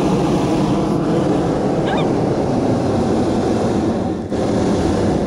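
Hot air balloon's propane burner firing in a long, loud, steady roar, with water splashing as the wicker basket skims the river surface.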